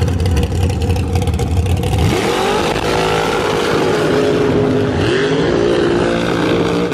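Supercharged V8 of a front-engine dragster running very loud with a rapid crackle during a burnout, then revving, its pitch rising and falling several times, and cutting off sharply at the end.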